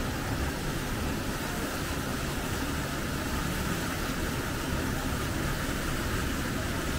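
Hot spring water pouring down the Yutaki cascade in a steady, unbroken rush.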